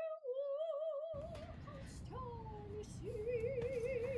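A woman singing in an operatic style, holding long notes with wide vibrato and sliding between pitches, with no accompaniment heard; faint room noise comes in about a second in.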